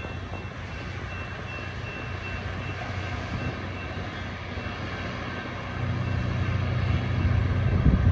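A locomotive moving slowly, with a steady low engine drone that grows louder about six seconds in.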